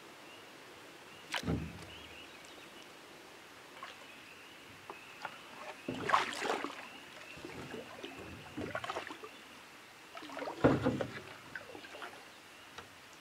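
Canoe being paddled, with three splashy paddle strokes in the water a couple of seconds apart. There is also a single sharp knock with a low thud about a second and a half in.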